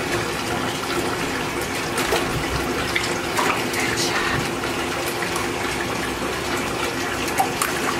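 Water running from a bathtub tap into a shallow tub in a steady rush, with small splashes as wet puppies are handled in the water.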